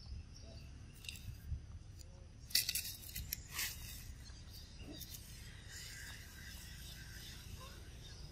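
Clear plastic cup crackling and clicking as a baby monkey handles it, with a short cluster of sharp crackles a few seconds in.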